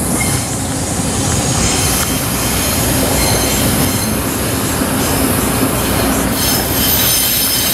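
A train running along the track nearby: a steady, loud rumble of wheels on rails, with faint high-pitched squealing from the wheels coming in partway through.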